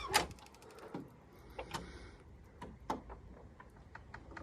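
Faint scattered clicks and ticks from a gate swinging slowly shut under a hydraulic door closer, with one sharper click just after the start.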